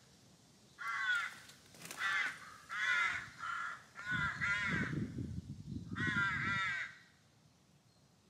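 A crow cawing about seven times in a ragged series, the last caw coming after a short pause, with a low rumble under the later calls.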